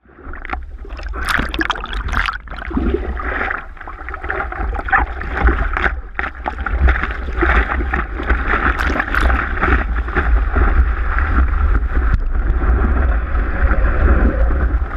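Seawater splashing and rushing over a surfboard-mounted GoPro as the surfer paddles into a wave and rides it, with a steady low rumble of water and wind on the camera housing.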